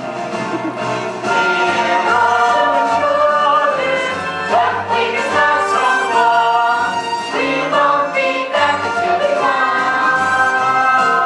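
Several voices singing a musical-theatre song together with instrumental accompaniment, including some long held notes.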